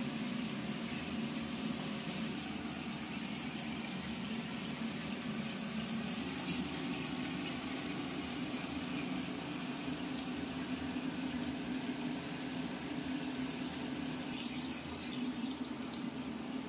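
Prawns frying in hot mustard oil in a pan: a steady sizzle, with a low steady hum underneath.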